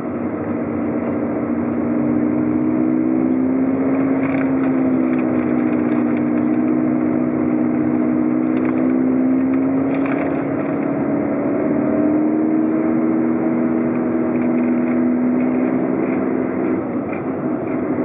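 Car engine and tyre noise while driving: a steady hum whose pitch drifts up and down a little as the speed changes.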